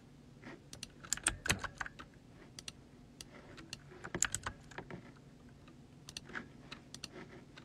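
Typing on a computer keyboard: irregular, quiet keystrokes in short clusters.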